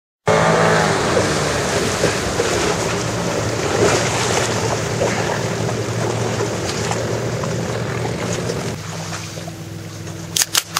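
A 25 hp Mercury two-stroke outboard on a small three-point hydroplane running on the water, with a loud rush of water and wind over it. About nine seconds in the rush eases and the engine's steady note stands out, and a few sharp clicks follow near the end.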